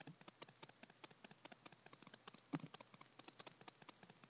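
Faint, quick, irregular clicking of computer keys being typed, with one louder knock about two and a half seconds in.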